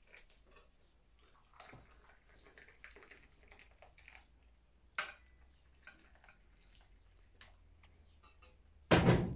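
Tea poured from a metal teapot into small tea glasses: a faint trickle of liquid with light clinks of glass and metal, and a loud knock near the end.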